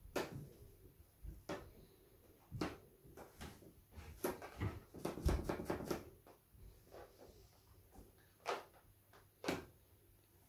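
Inflated rubber balloon dabbed and pressed onto a stretched canvas wet with acrylic paint: soft, irregular pats and rubbing, a few on their own and a quick cluster near the middle.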